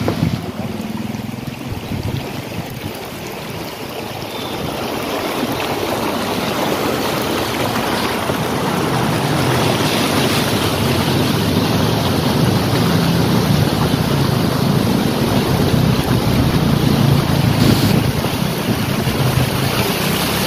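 A car's front tyre ploughing through floodwater on a road, throwing up a steady rushing splash of spray, with the car's engine humming underneath. The rush grows louder a few seconds in.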